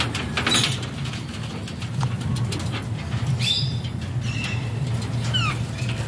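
Green ring-necked parakeets giving a few short, high chirps in the second half, two of them falling in pitch, amid scratchy rustling in the straw, over a low steady hum.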